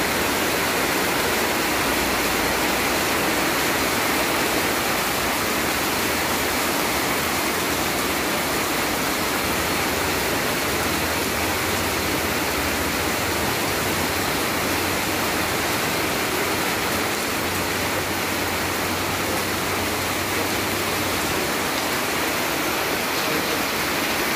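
Heavy rain falling in a steady downpour, an even hiss.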